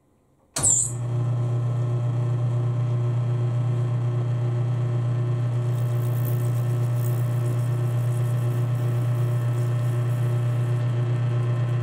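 A metal lathe switched on about half a second in, its motor and drive running with a steady low hum while a small chamfer is turned on the end of a PVC part.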